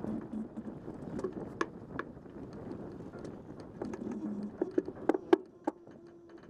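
Sailboat under way: a steady rush of wind on the microphone and water along the hull, with irregular clicks and knocks of deck gear being handled. A quick run of sharper, louder clicks comes about five seconds in.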